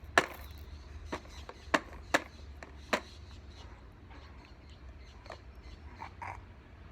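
Light clicks and taps of a spoon against a baby's food bowl, about five in the first three seconds, over a low steady hum.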